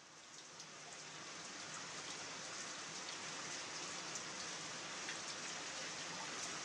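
Steady rain-like hiss with scattered light ticks, fading in over the first two seconds and then holding steady, as a song's intro.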